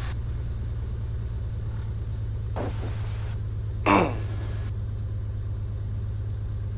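Continental O-470 six-cylinder engine of a 1957 Cessna 182 Skylane running at taxi power, heard as a steady low drone through the headset intercom. A short patch of hiss and a brief chirp come about three to four seconds in.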